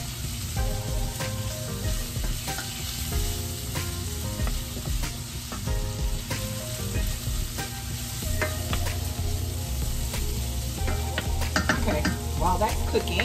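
Onions and vegetables sizzling in oil in a stainless steel sauté pan as they are stirred with a wooden spoon. The spoon scrapes and taps against the pan now and then.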